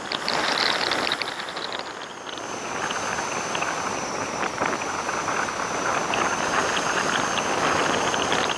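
Steady rushing wind and road noise of a vehicle on the move, with a thin high whine that sets in about two seconds in.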